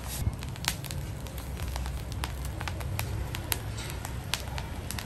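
Shellfish on the half shell cooking on a bed of hot sea salt in a wok, with scattered sharp pops and crackles over a steady low rumble of the heat underneath.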